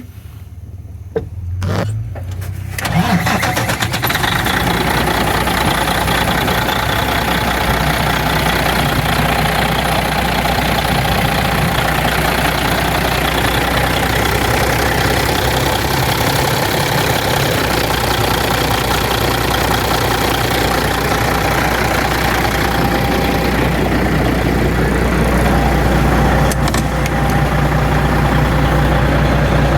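Caterpillar 3406E inline-six truck diesel cranking on the starter for about two seconds, then firing and settling into a steady run. It runs a little louder near the end.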